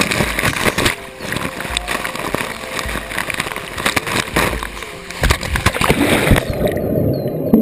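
Water rushing and splashing around a waterproof action camera as it plunges off the end of a water slide into the pool and goes under. About six and a half seconds in, the sound turns dull and muffled, with the camera held underwater.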